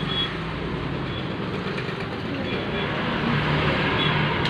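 Steady noise of road traffic, with faint voices under it.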